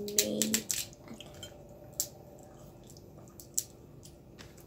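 Boiled crab shells being cracked and picked apart by hand: a quick run of sharp, crackling clicks at the start, then single snaps about two and three and a half seconds in, with wet, squishy eating sounds.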